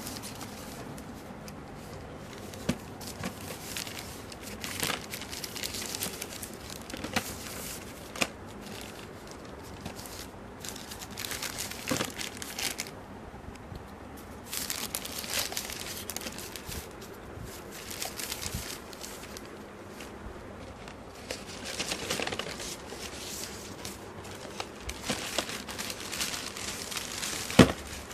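Grey plastic courier mailer bag crinkling and tearing in irregular bursts as it is handled and ripped open by hand. There is a sharp knock near the end.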